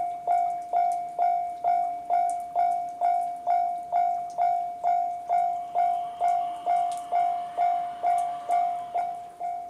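Japanese level-crossing alarm ringing its JR standard electronic bell tone: one bell-like note struck a little over twice a second, each stroke dying away. From about halfway in, the running noise of a passing JR 211 series electric train rises faintly under the bell.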